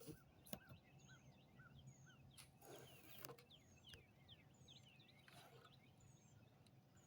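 Faint outdoor night ambience: many small animal calls chirping in steady repeated notes, over a low steady hum, with a few faint clicks and brief rustles.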